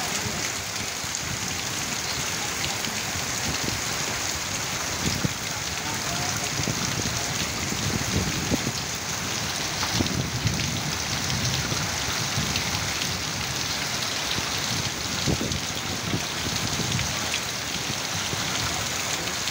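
Heavy rain pouring steadily onto a flooded field and the leaves around it, with a few louder drop hits now and then.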